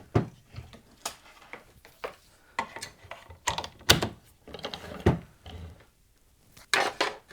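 Irregular clicks and knocks of hard plastic and equipment being handled and set down on a workbench, the sharpest knock about four seconds in.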